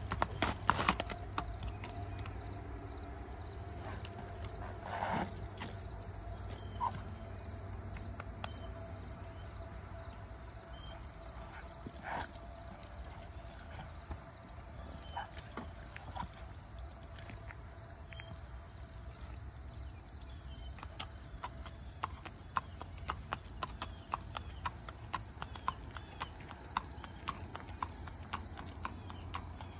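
A horse's hooves clip-clopping at a walk on an asphalt road, the hoofbeats sharper and more regular in the last several seconds. A steady chorus of insects buzzes behind them.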